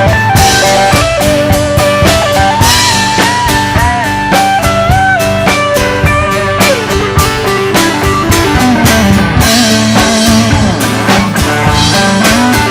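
Live country-rock band playing an instrumental break between sung verses: a lead instrument plays bending, sliding notes over a steady drum beat and bass.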